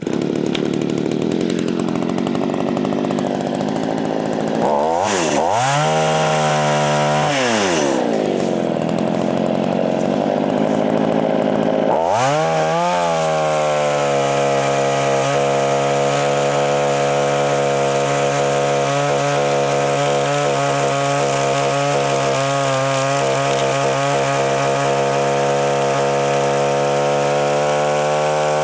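Gas chainsaw running after a restart: revved up and down twice, then brought up to high revs about twelve seconds in and held there while cutting green pecan limbs, the note wavering under load.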